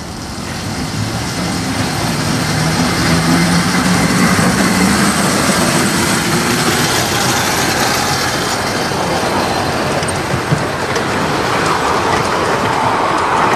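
Miniature railway train, the Eurostar-style locomotive and its carriages, rolling past close by: a steady rumble of wheels on the track that grows louder over the first few seconds and then holds as the coaches go by. A single knock about ten and a half seconds in.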